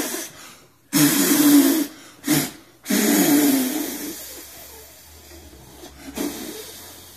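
A man blowing hard through his mouth in about five forceful gusts of breath, some with a strained voiced edge. The longest is about a second and fades away; a last short puff comes near the end.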